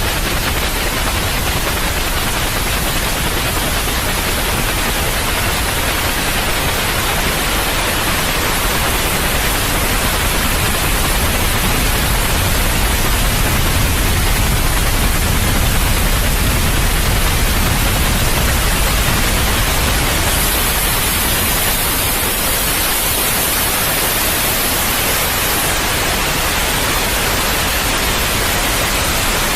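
Steady white noise for soothing a colicky baby: a continuous, even hiss across the whole range. Its highest hiss brightens for a few seconds past the middle.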